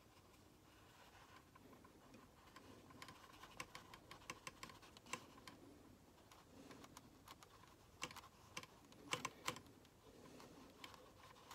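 Near silence with faint, scattered light clicks and taps from watercolor brushwork on paper. They come in two loose clusters, a few seconds in and again near eight to nine and a half seconds, the loudest about nine seconds in.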